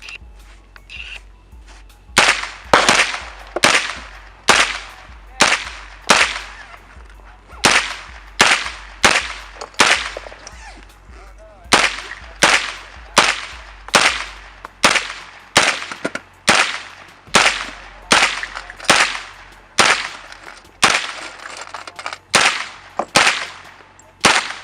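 A long string of firearm shots at a shooting range, about thirty in all, fired one at a time at a fairly steady pace of a little more than one a second. They begin about two seconds in, with two short pauses, and each shot trails off in a brief echo.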